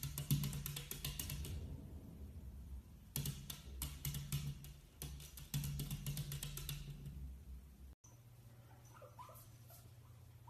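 Background music with a percussive, drum-like beat that cuts off abruptly about eight seconds in. It is followed by a low steady hum with a few faint short chirps.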